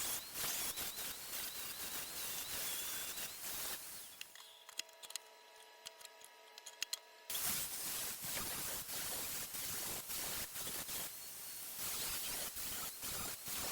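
Welding arc crackling and spitting as a sheet-metal patch panel is welded into a car body, in two runs with a pause of about three seconds between them.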